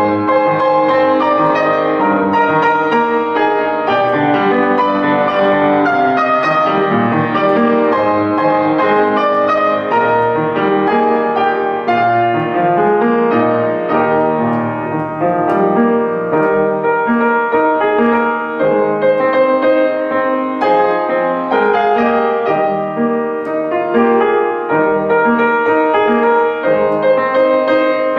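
Solo piano playing a lyrical piece with steady flowing notes.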